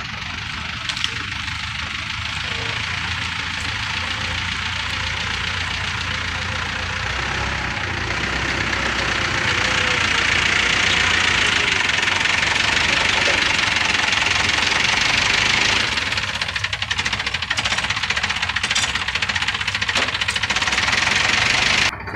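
Mobile crane's engine running hard, with a steady low hum under a loud rushing mechanical noise. It grows louder over the first ten seconds or so, eases a little around sixteen seconds, and cuts off abruptly near the end.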